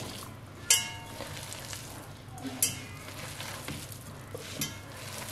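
Thick gram-flour batter being stirred in a glass bowl, a soft wet squelching, with three sharp ringing clinks of the spoon against the glass about two seconds apart, the first the loudest.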